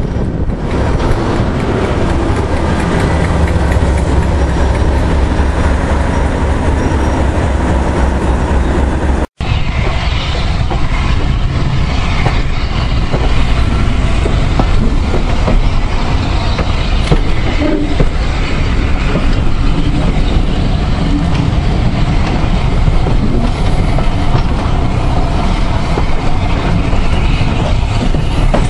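Railway carriage running along the line, its wheels rumbling on the rails. A low steady drone runs under it for the first nine seconds, then the sound drops out for an instant and carries on as brighter running noise.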